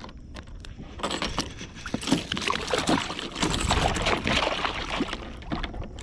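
A trout thrashing and splashing in the water at the side of a kayak while held on a line, busiest from about one to five seconds in.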